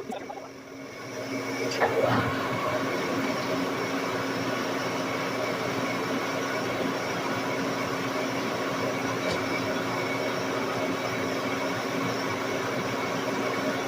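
Large engine lathe turning a heavy metal ring: a steady cutting and machine-running noise with a low hum, which grows louder about two seconds in and then holds even.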